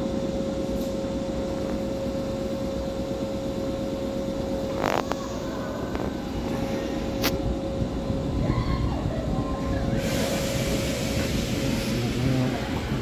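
Nankai 7100 series electric train standing at the platform, giving a steady whine over a low rumble. Two sharp clicks come a couple of seconds apart midway, and a broad hiss starts about ten seconds in.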